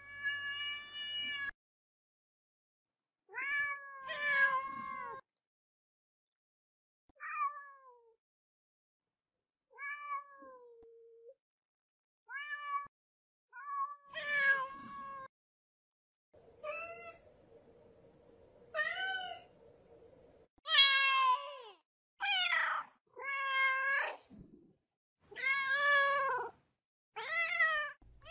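Domestic cats meowing: a string of separate meows with pauses between them, some falling in pitch at the end, coming faster and louder in the second half.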